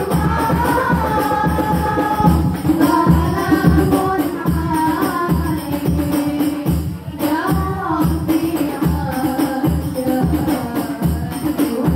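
Hadroh music: rebana frame drums beating a steady rhythm under a group of young women's voices singing a devotional melody together.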